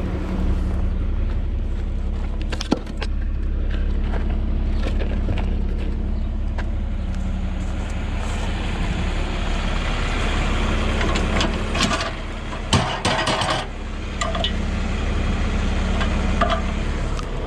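John Deere 4430 tractor's six-cylinder diesel engine running steadily while under way, a deep rumble with a steady low hum. A short burst of rattling knocks comes about two-thirds of the way through.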